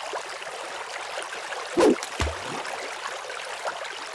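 Channel logo intro sound effect: a steady rushing noise like running water, with a sudden loud hit a little under two seconds in and a low thump just after it.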